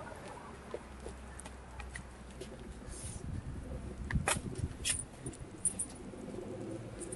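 A taut, gas-swollen plastic bag being picked up and set down on stone paving: rustling and a few sharp crinkling clicks about four to five seconds in, over a low rumble.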